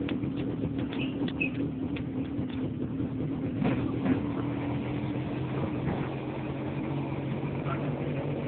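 Motorcycle engine of a Philippine tricycle running at a steady drone, heard from inside the sidecar, with a few light rattles.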